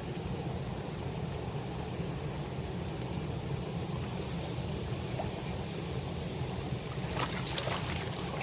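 Steady rush of river water, with splashing close to the microphone near the end.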